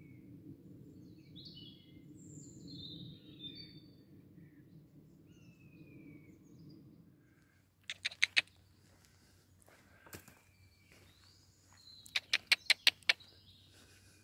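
Songbirds chirping and whistling over a low background noise that fades out about halfway. Two rapid runs of sharp, loud clicks follow, one about halfway and one near the end.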